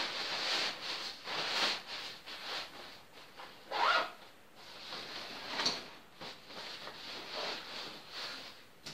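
Nylon fabric rustling and a zipper being worked as a hiking backpack's orange rain cover is handled and its top lid pocket opened. The rustling comes in irregular bouts, loudest about four seconds in.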